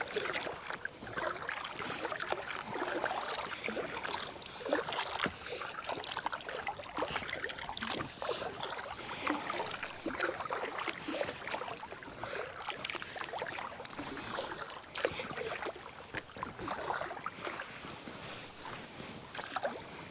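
Kayak paddle strokes: blades dipping and splashing in the water and dripping, a continuous run of small irregular splashes around an inflatable kayak.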